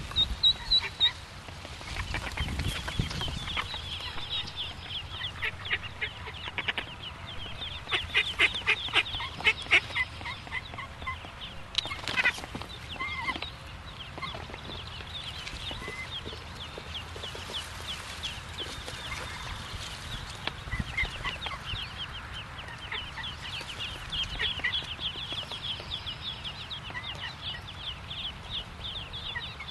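Mallard ducklings peeping: a steady stream of many short, high peeps, thickest about eight to ten seconds in. A single sharp knock comes about twelve seconds in.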